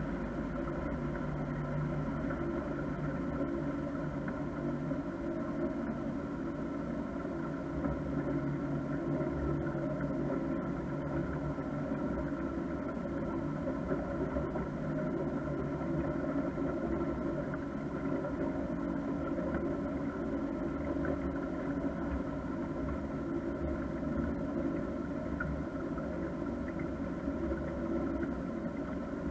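Motorboat engine running steadily while the boat is under way, an even hum with no change in pitch.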